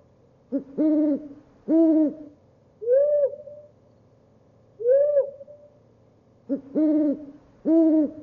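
Owl hooting: about eight hoots, each rising then falling in pitch, in a quick run of three, then two single hoots spaced apart, then another run of three near the end.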